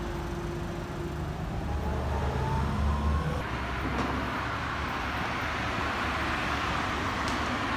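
Street traffic: a low engine rumble with a faint rising whine as a vehicle accelerates in the first few seconds, then steady tyre hiss from passing cars.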